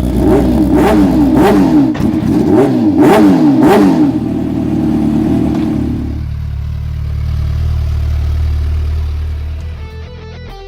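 Kawasaki sport bike engine revved up and down about six times in quick succession. It then settles into a steadier low running sound that fades near the end.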